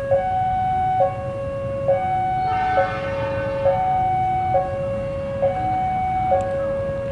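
Railway level-crossing warning alarm: an electronic two-tone signal alternating between a lower and a higher tone, each held just under a second, sounding as a train approaches.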